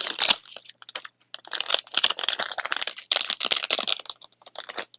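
Plastic packaging crinkling and crackling as it is handled, in stretches of dense crackles with a short pause about a second in.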